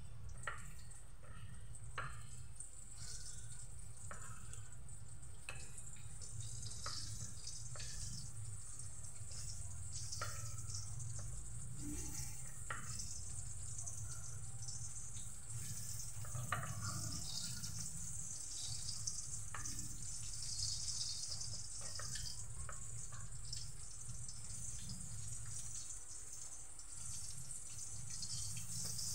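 Metal tongs clicking and scraping against a ceramic plate while dredging pork pieces in breading flour, over a steady hiss and low hum.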